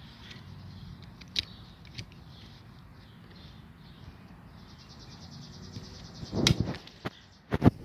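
Rucksack strap being handled and put back on around a forearm: light rubbing with a couple of soft clicks, then louder rubbing and knocks close to the microphone in the last second or two.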